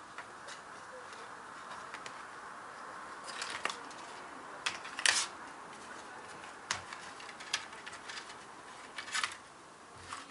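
Scattered small clicks and taps of hands and a small tool working inside an opened MacBook, over a steady faint hiss. The loudest cluster of clicks comes about five seconds in, with smaller ones a little before and near the end.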